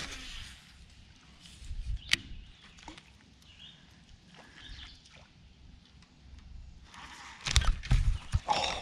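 Handling sounds of a baitcasting rod and reel being cast and reeled on a boat: a sharp click about two seconds in, quiet in between, and a cluster of knocks and thumps near the end.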